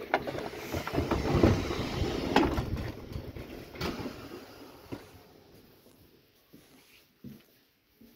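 Southeastern electric train's sliding passenger doors opening at the press of the door-open button: a click, then a few seconds of loud door and mechanism noise with knocks. It falls away to the quieter carriage interior, with a few light knocks.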